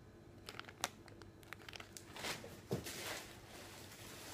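Plastic bag packaging crinkling and rustling as it is handled, with scattered small clicks and a few fuller rustles around the middle.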